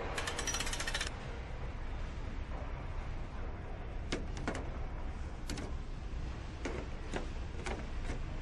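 Assembly-line fastening tool ratcheting in a rapid run of clicks for about a second, then a handful of sharp metallic clicks and clinks from tooling and fixtures, over a steady low factory hum.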